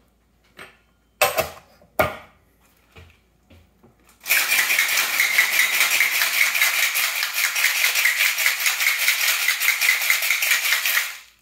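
A stainless steel Parisian cocktail shaker loaded with ice and an espresso martini mix: a few sharp clinks as it is handled and capped, then, from about four seconds in, a loud, fast, steady ice rattle as it is shaken hard for about seven seconds, chilling the drink and frothing the coffee. The rattle cuts off near the end.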